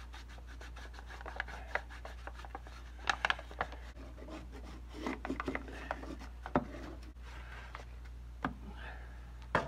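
Ball-peen hammer lightly tapping brown kraft paper laid over a cast-iron oil pump flange, shaping a hand-cut gasket against the metal edge. The taps come at irregular intervals, a few in quick clusters, with the paper rustling and rubbing under the hand between them.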